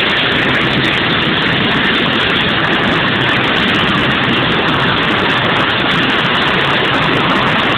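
Loud, steady engine noise that runs on without pauses or changes.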